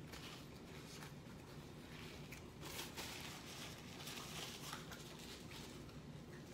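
Faint soft clicks and rustling close to the microphone, with a slightly louder rustle about three seconds in.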